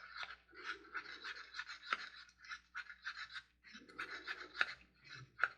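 A mixing stick scraping around a cup in repeated short scratchy strokes, stirring mica powder into resin.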